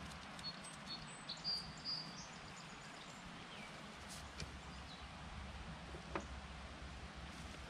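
Quiet ambience with a few short bird chirps, loudest between one and two seconds in, and faint clicks of hand tools being handled, with one sharper clink about six seconds in.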